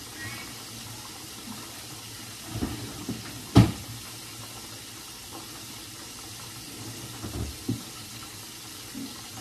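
Rummaging through a refrigerator: a few knocks and clatters of containers being moved on the shelves, the loudest a sharp knock about three and a half seconds in, over a steady background hiss.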